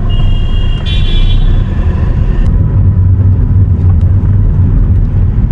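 Steady low rumble of engine and road noise heard from inside a 2012 Hyundai Verna 1.6 CRDi diesel as it drives. A high-pitched tone sounds over it for the first two and a half seconds.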